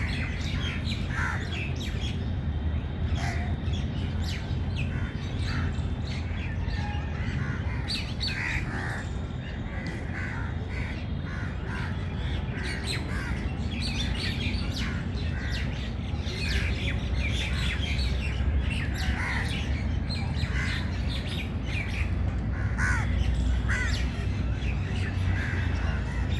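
Birds calling: many short calls and chirps scattered throughout, over a steady low rumble.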